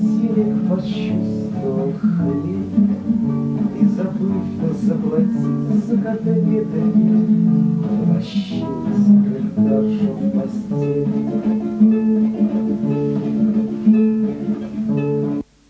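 Acoustic guitar strummed and picked in an instrumental passage closing a song. It cuts off suddenly near the end.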